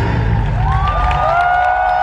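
Live stage-show music reaching the end of a song: a low rumble from the drums, then, about half a second in, several voices or instruments glide up together into a long held final chord.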